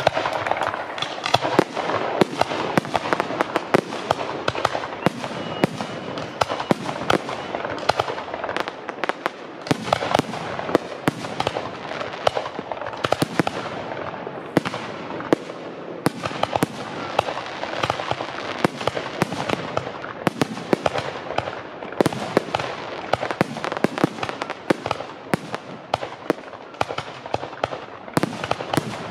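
Fireworks display: a dense, unbroken string of sharp bangs and crackles, several a second, with no pause.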